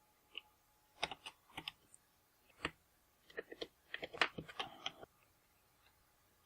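Irregular clusters of small sharp clicks and taps on hard plastic, from hands and a tool working on a laptop's screen assembly. The clicks are densest about three to five seconds in, then stop.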